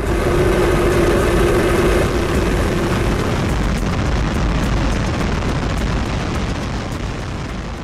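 A large rocket's engines firing at liftoff: a loud, steady, dense rumble with a deep low end that comes in suddenly, carries a held tone for the first few seconds, and slowly fades near the end.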